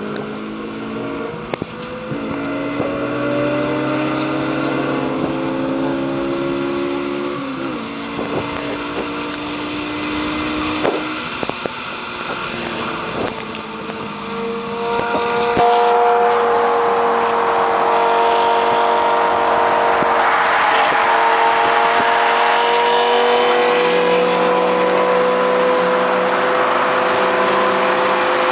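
Lamborghini Gallardo's V10 engine at highway speed, its note sliding up and dropping back in steps through the first half. About halfway through, loud rushing wind and road noise come in and the engine note turns steady and louder.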